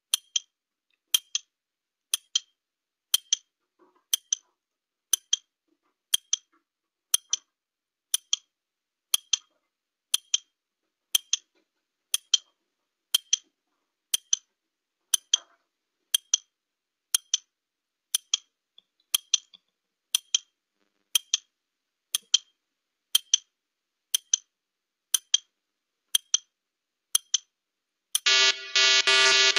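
Countdown timer sound effect: a clock ticking about once a second for the 30-second answer time, then a loud, harsh buzzer near the end signalling that time is up.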